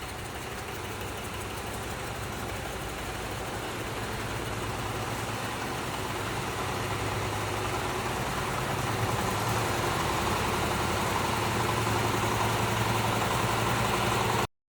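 Engine of a crawler micro cultivator running steadily, slowly growing louder, then cut off suddenly near the end.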